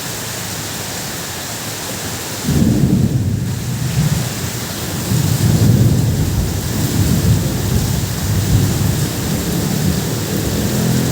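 Heavy rain falling steadily on a tin roof. About two and a half seconds in, thunder breaks in suddenly and loudly, then rumbles on in rolling swells.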